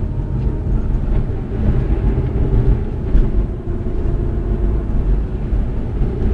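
Vortex Tingo SUV under throttle in second gear at about 30 km/h: low engine and drive rumble with a steady hum on top. It is an extraneous noise that appears only when the accelerator is pressed, which the driver says makes it seem as if the engine were misfiring.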